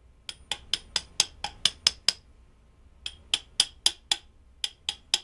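A hammer tapping a steel pipe used as a seal driver, seating a new propeller-shaft seal in an outboard lower unit's bearing housing. Quick metallic taps with a ringing edge, about four a second, in three runs with short pauses between them.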